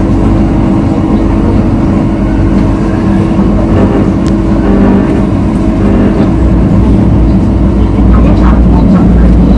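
MTR South Island Line S-Train heard from on board as it pulls out of a station and gathers speed: a steady motor hum over running rumble that grows stronger about six seconds in.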